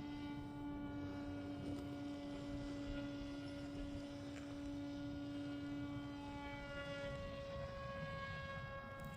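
Radio-controlled model airplane's motor and propeller droning in flight at a steady pitch, which drops slightly about seven seconds in.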